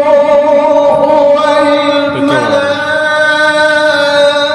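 A man's voice reciting the Qur'an in melodic tilawah style into a microphone, drawing out the word 'ar-ruh' as one long held note that wavers briefly about halfway through.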